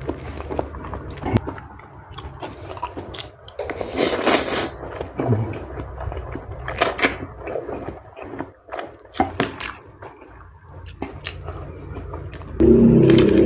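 Close-miked mouth sounds of eating squid and noodles: wet chewing and biting in irregular bursts, with a few louder sharp ones. Near the end a louder, steadier sound begins.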